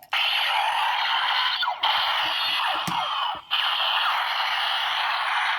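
Electronic sound effects from a DX Break Gunner toy's small speaker: three long, noisy blast effects in a row, with short breaks about two and three and a half seconds in. The sound is thin and tinny, with no low end.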